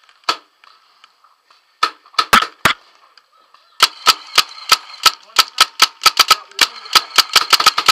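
Paintball markers firing: one shot, a quick string of four near two seconds in, then a long run of rapid shots about five a second from about four seconds on.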